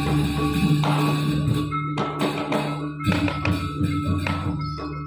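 Balinese gamelan music: struck metal keys and gongs playing over a steady ringing low tone, with sharp percussive strikes that thin out near the end.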